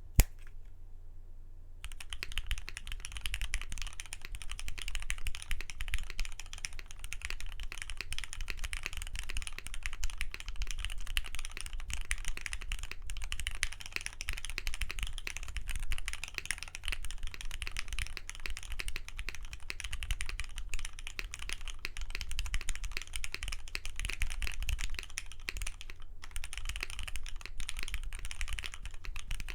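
Fast, continuous typing on a custom Matrix 2.0add mechanical keyboard with an aluminum plate, lubed retooled Cherry MX Black linear switches and CRP keycaps, starting about two seconds in. A low steady hum runs underneath.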